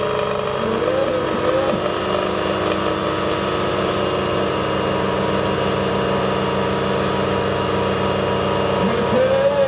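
Diesel engines of two farm tractors running at a steady speed, with no rise or fall in pitch.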